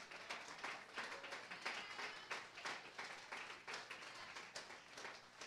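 Congregation applauding with scattered, uneven hand claps.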